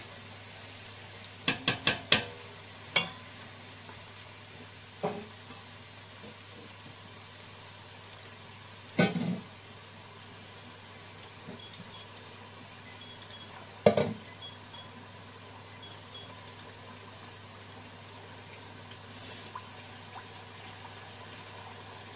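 Hot oil sizzling steadily in a steel pot of frying potato fries. A metal skimmer clinks against the pot in a quick run of four clinks near the start, then knocks on it twice, louder, in the middle.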